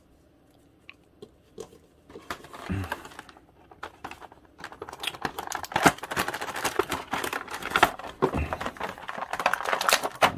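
Action-figure packaging being handled: a cardboard box insert and a clear plastic blister tray rustling and crinkling. A few light clicks at first, then rustling from about two seconds in, becoming continuous dense crinkling about halfway through.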